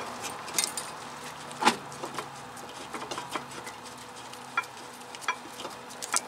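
A handful of light, scattered metal clicks and taps as caliper bracket bolts and brake hardware are handled by gloved hands, over a faint steady hiss.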